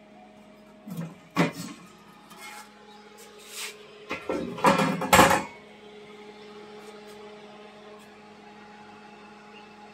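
Sheet-metal top cover of a power amplifier being handled and taken off: a few scrapes and knocks, the loudest cluster about four to five seconds in.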